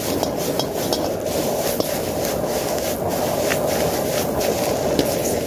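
High-power propane wok burner running steadily under a carbon steel wok, with a metal ladle scraping and clicking against the wok as noodles are stir-fried and tossed.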